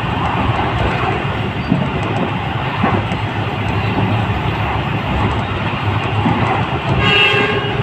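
Steady running noise of a moving train heard from inside the carriage, with a brief higher tone about seven seconds in.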